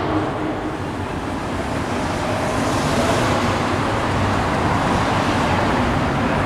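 Steady road-traffic noise: a constant low rumble of vehicles on the street, a little brighter for a moment about three seconds in, as one passes closer.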